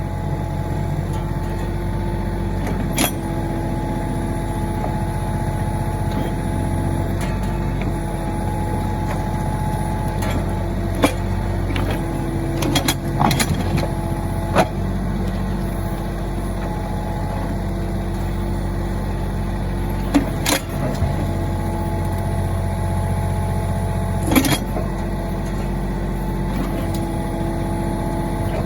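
Mahindra 1626 tractor's diesel engine running steadily while it works the backhoe. Several sharp knocks and clanks come through the engine sound, a few of them bunched together about halfway through, as the backhoe works at the stump.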